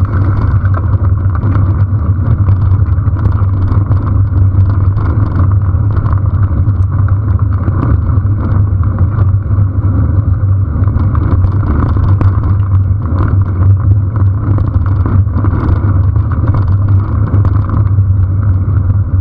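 Steady rumble of wind on the microphone and tyre noise from a camera riding along a dirt-and-gravel track on a moving bicycle, with many small rattles and ticks from the bumps.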